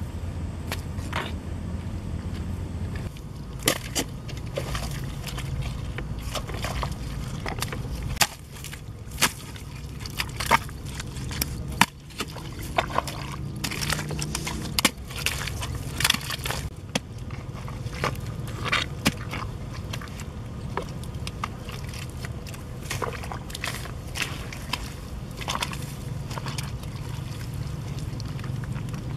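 A hoe blade chopping and scraping into wet mud, with irregular sharp strikes and the slosh and squelch of waterlogged soil, over a steady low rumble.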